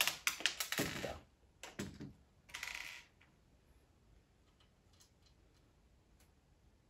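Plastic Technic-style building parts clicking and rattling as a model truck is handled, turned over and set down on a wooden table. The clatter is densest in the first three seconds, with a short rattle near three seconds, then only a few faint clicks.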